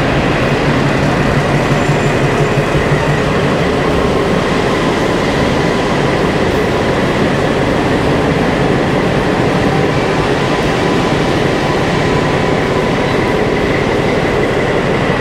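PKP SU45 diesel locomotive, with its Fiat V12 diesel engine, running steadily as it rolls slowly past at close range. A steady engine drone with a high whine over it.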